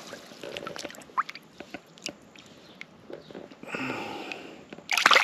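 Soft water sounds and small drips as a small largemouth bass is held down in shallow lake water, then a loud splash near the end as the fish is let go and swims off.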